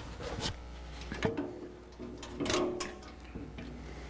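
A homemade wooden V-block jig being handled and set down on a bandsaw's metal table: a few knocks and sliding scrapes over a steady low hum.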